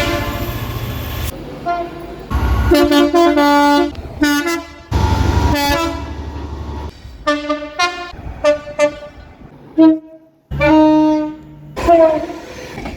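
Train horns sounding a rapid series of short blasts, several stepping between two notes, from different trains spliced one after another with abrupt cuts. A heavy low rumble runs beneath some of them.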